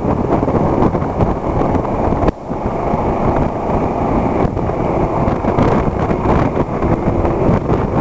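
Heavy wind noise buffeting the microphone of a camera riding on a moving motorcycle, with engine and road noise underneath. It dips briefly about two seconds in.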